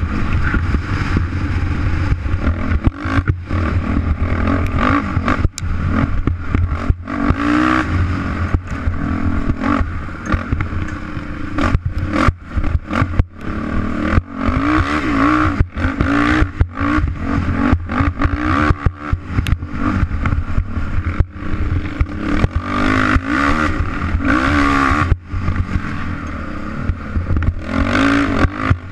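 Dirt bike engine revving up and down again and again while being ridden hard on a rough off-road course, with the bike rattling over bumps and wind buffeting the on-board microphone.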